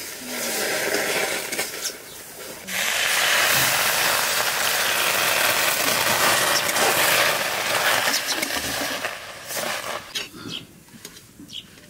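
Semolina mixture stirred with a ladle in an aluminium wok, giving a steady sizzling hiss that grows much louder about three seconds in and dies down near the end, leaving a few light scrapes and clicks of the ladle.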